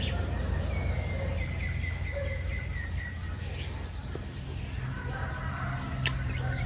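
Wild birds chirping and calling in the background: a string of short high chirps and a trill, over a steady low rumble. A single sharp click near the end as a spoon is set down.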